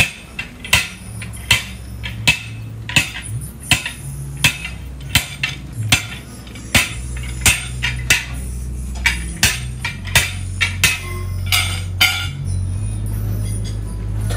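Sledgehammer striking a steel tyre lever driven in at the bead of a tubeless truck tyre on its steel rim, to break the bead loose. The strikes are sharp metallic clanks, about one every three-quarters of a second, and they stop about two seconds before the end. A low hum runs underneath and grows louder toward the end.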